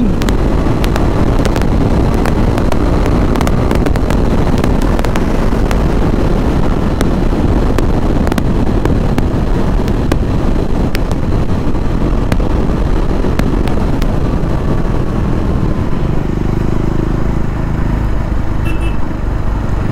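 KTM Duke 390 single-cylinder motorcycle ridden at highway speed: a steady rush of engine and wind noise. About sixteen seconds in it drops to a lower, quieter note as the bike slows down.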